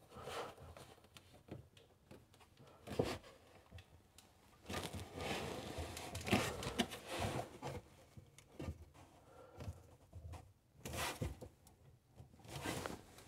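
Hands turning a plastic slip nut on a sink drain trap by hand: quiet, irregular scraping and rubbing with a few sharp clicks, as the nut is snugged up tight.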